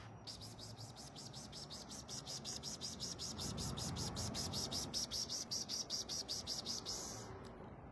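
A cricket chirping in a rapid, even series of about six high pulses a second. It starts just after the beginning and stops abruptly near the end, over a low background rumble.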